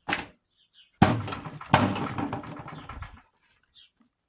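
Cordless impact driver hammering at a rusted bolt on a Briggs & Stratton 11 hp engine. A short blip comes first, then a loud rattling run of impacts about a second in, pushed again partway through, stopping after about two seconds.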